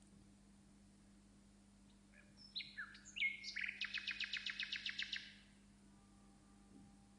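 A songbird singing: a few short whistled notes about two seconds in, then a fast trill of about a dozen notes a second that stops a little after five seconds in.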